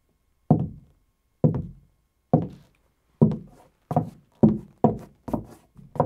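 Foley footsteps performed to picture: single knocking steps on a floor, about a second apart at first, then quickening to about two a second for the last five.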